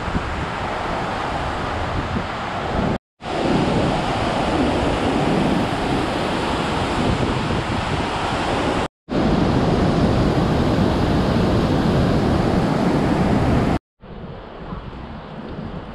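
Rushing water of the Rhine Falls, a steady heavy rush. It breaks off briefly twice at cuts. Near the end it becomes a quieter, duller rush.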